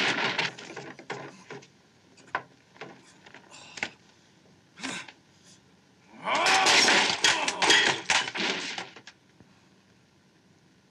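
Fight-scene sound effects: the tail of a crash fading out, then a few scattered knocks. About six seconds in comes a loud stretch of about three seconds: a man's shout mixed with rapid hits, after which it goes quiet.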